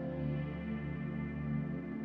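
Ambient background music of sustained, held chords.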